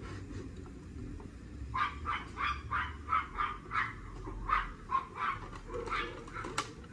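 A dog barking repeatedly in short barks, about two to three a second, starting about two seconds in.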